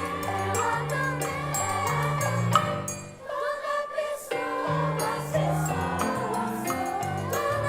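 Choir singing with piano accompaniment; the music drops away briefly about three seconds in, then the choir and piano come back in.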